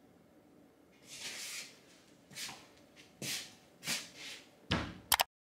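A few soft, short rustling noises from a person moving about, then a thump and a couple of quick clicks near the end, after which the sound cuts off abruptly.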